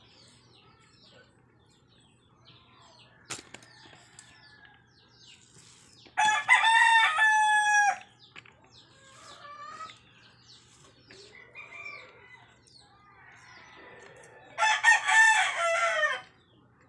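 A rooster crowing twice, each crow lasting about two seconds, the first about six seconds in and the second near the end.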